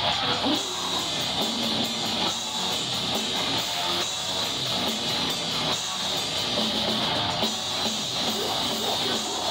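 Live heavy hardcore band playing loud, distorted electric guitar over pounding drums, a dense unbroken wall of sound.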